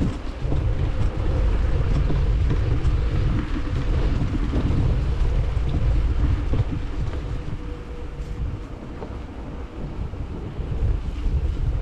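Wind buffeting a GoPro action camera's microphone during a bicycle ride, a heavy gusting rumble that eases for a few seconds about two-thirds of the way in and then picks up again.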